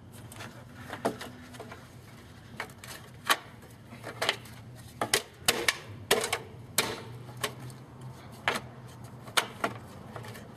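Irregular sharp taps and knocks, about fifteen over ten seconds, from hand work fitting a dryer vent into a brick wall, over a faint steady hum.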